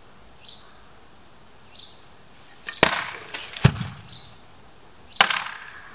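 Axe chopping scrap wood: three sharp blows, two a little under a second apart about three seconds in and a third near the end.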